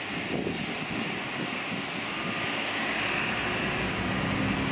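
Airbus A321 airliner's jet engines on final approach with gear down: a steady rumble with a faint whine, growing gradually louder as the plane comes closer.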